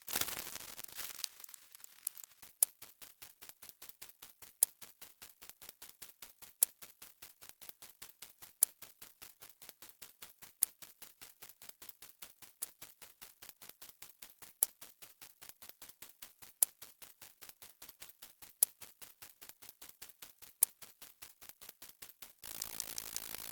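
Sound-effect ticking: even, sharp clicks at about five a second, with a louder click every two seconds. Near the end it switches to a faster, denser ratcheting click.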